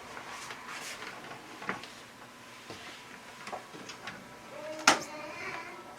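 Handling noises from parts of a front-load washing machine being worked on: scattered light clicks and knocks, with one sharp, loud click about five seconds in.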